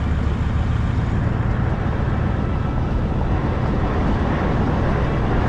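Toyota Land Cruiser 79 Series driving: a steady low engine drone with road and wind noise.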